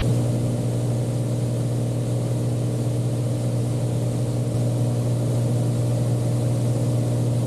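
Beechcraft Bonanza V35's piston engine and propeller running steadily in flight, heard from inside the cockpit as an even low hum that does not change.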